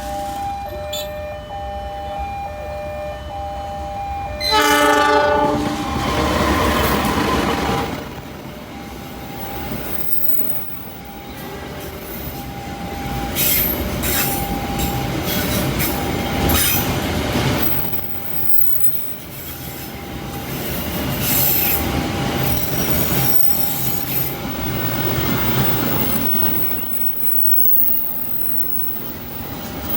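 A steady warning tone, then a train horn blast about five seconds in, followed by a long passing train with running rumble and wheel clatter and squeal on the rails.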